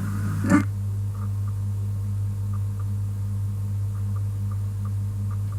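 A steady low electrical-sounding hum with faint, regularly repeating ticks above it.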